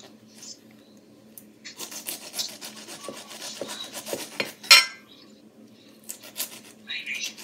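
A knife sawing through a whole pineapple's tough, spiky rind: a rapid, crunchy rasping in quick strokes, with one sharp clack about two-thirds of the way in, and shorter bursts of cutting near the end.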